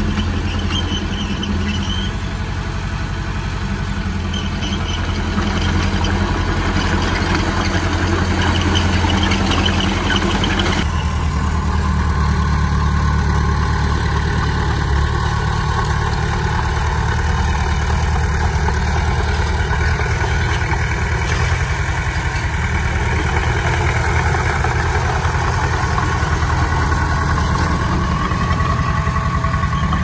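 Komatsu D20P bulldozer's diesel engine running steadily, a continuous low engine sound; its tone changes abruptly about eleven seconds in.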